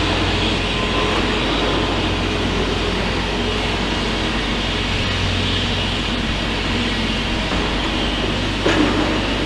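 Steady rumble of heavy diesel site machinery running, with a low hum throughout. A single sharp clank comes near the end.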